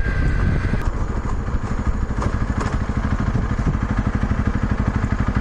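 Honda CRF250 Rally's single-cylinder engine idling with a steady, rapid, even beat. The bike is briefly under way at the start, before the sound changes just under a second in.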